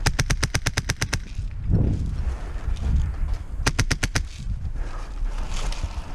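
Krytac airsoft rifle firing two full-auto bursts, about ten shots a second: a longer burst at the start and a short one of about six shots near the middle. Dull thumps come between the bursts.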